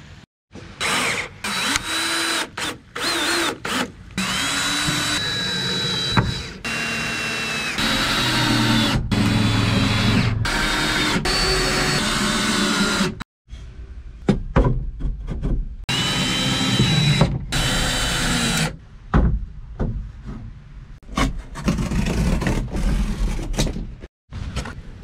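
DeWalt 20V cordless drill driving screws into wood in a run of separate bursts, its motor whine rising and sagging under load. The sound cuts out abruptly several times.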